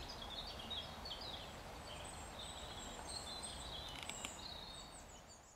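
Small birds chirping and singing in short, varied phrases over a faint outdoor background noise, fading out near the end.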